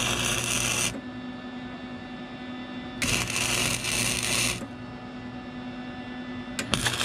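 Welding a steel mount in two short bursts of arc noise, each about a second and a half long, over a steady hum. A few sharp clicks come near the end.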